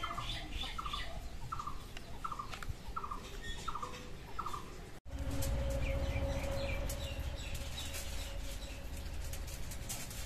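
Bird calling, the same short chirp repeated about twice a second. After a cut about five seconds in, aluminium foil crinkles as it is cut off the roll with scissors, with a faint steady hum and a few higher bird chirps.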